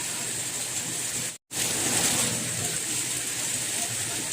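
Steady soft rain falling, an even hiss with a light patter beneath it. About a third of the way in, the sound cuts out completely for an instant and then resumes.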